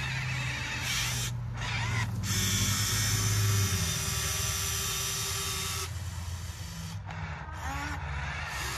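Small electric motors and gearboxes of radio-controlled model construction machines running under a steady low hum. A higher-pitched whine sets in about two seconds in and stops about two-thirds of the way through.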